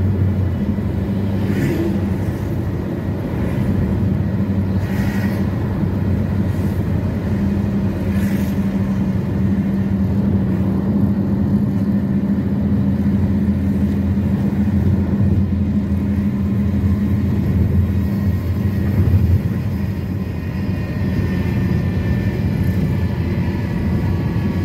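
Motor vehicle on the move: a steady low engine hum with road noise.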